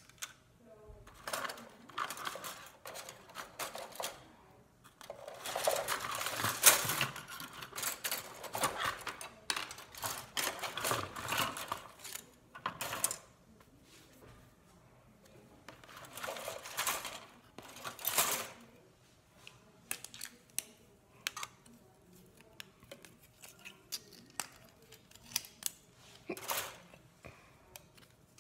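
Hard plastic parts of an HO-scale model building kit being handled and fitted together: stretches of clattering and rattling, then sparse sharp clicks in the second half.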